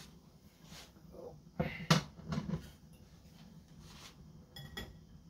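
Kitchen clatter: a few sharp knocks and clinks as a stainless frying pan and metal spatula are handled and set down, the loudest about two seconds in.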